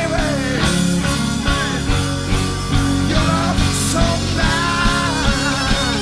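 Rock band music with drums and bass, and an electric guitar playing a lead line with bent notes over it.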